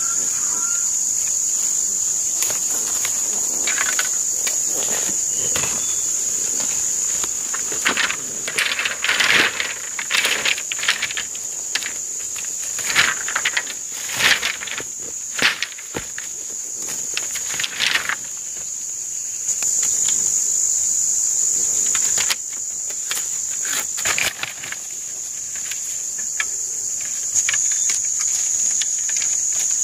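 Insects droning steadily at one high pitch, with a cluster of short, irregular noises in the middle stretch.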